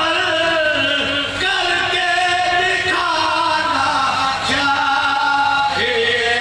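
Men chanting a marsiya, a Shia elegy for Imam Husain, in long held, wavering melodic lines, amplified through a microphone.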